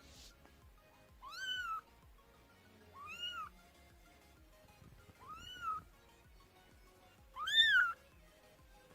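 Kitten meowing four times, evenly spaced about two seconds apart, each a short high-pitched call that rises and falls in pitch; the fourth is the loudest. These are the calls kittens make for their mother.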